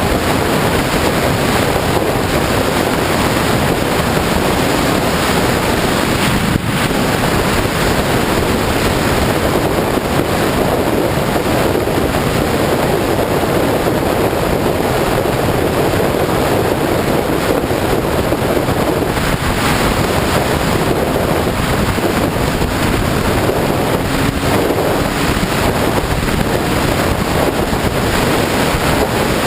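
Wind rushing over the microphone of a camera on a moving sport bike at riding speed: a steady, loud roar of noise with no words.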